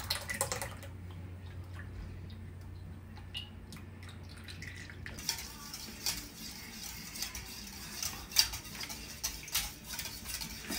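Wire whisk clinking rapidly against a stainless steel mixing bowl, beating an egg-and-milk pudding mixture. The whisking comes in quickly and densely about halfway in; before that there are only a few light clinks over a low steady hum.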